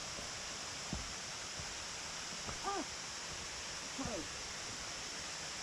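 Steady outdoor rushing hiss, with two short falling voice-like calls about a second and a half apart and a soft thump about a second in.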